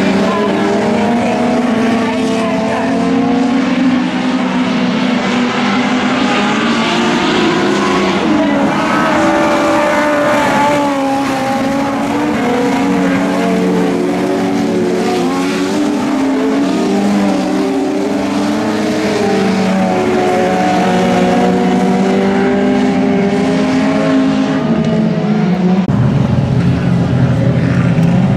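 Several dirt-track race cars' engines running hard around a speedway oval, their pitch rising and falling as they accelerate out of the turns and back off into them. A deeper engine note comes in close near the end.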